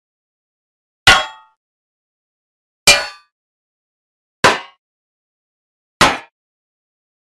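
Blacksmith's hand hammer striking a sword blade being forged: four single metallic clangs about one and a half seconds apart, each ringing briefly and dying away.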